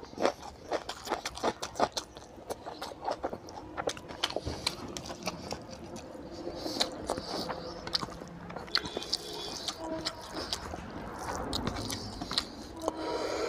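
Close-miked chewing and wet mouth sounds of a person eating oily mutton fat curry with rice, with many quick smacks and clicks.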